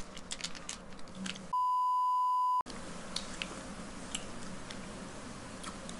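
A steady, loud edit bleep, a single pure tone near 1 kHz, sounds for about a second starting about a second and a half in, with all other sound cut out while it plays. Before and after it come faint crinkles and small clicks of plastic snack wrappers being opened, along with chewing.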